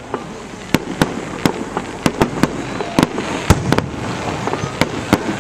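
Fireworks going off in quick, irregular succession: more than a dozen sharp bangs and pops over a few seconds, with the loudest crack about halfway through.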